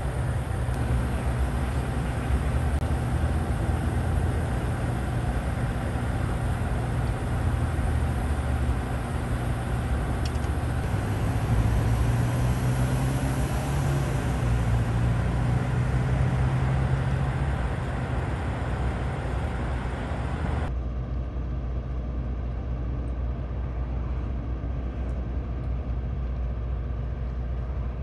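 Steady low rumble of idling engines and road traffic, with a hum that fits the fire engines standing by at the scene. About 21 seconds in, the high hiss drops away abruptly, leaving a lower, steady rumble.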